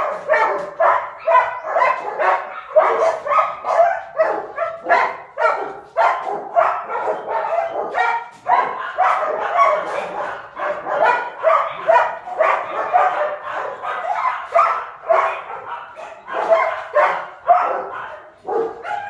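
Dogs barking over and over, a fast, unbroken string of about three barks a second.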